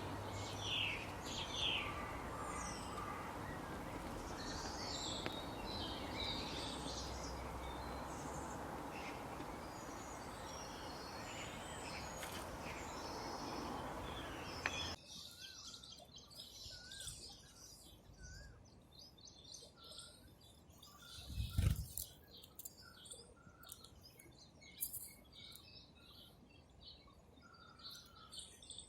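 Small birds chirping over a steady background hiss that stops abruptly about halfway through. After that come scattered chirps over quieter ambience, with one brief low thump a few seconds later.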